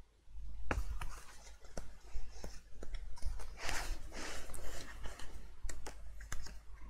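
Paper rustling as pages of a pad of patterned craft paper are handled and flipped through, with scattered light taps and clicks; the loudest rustle comes about halfway through.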